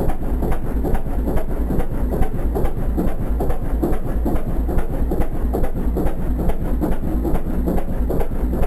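Small boat's engine running steadily, a fast, even clatter over a low rumble.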